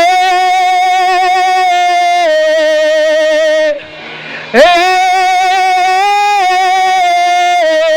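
Worship singing: a voice holds long sustained notes in two phrases, each sliding up into the note at its start, with a second line an octave below. There is a short break in the middle.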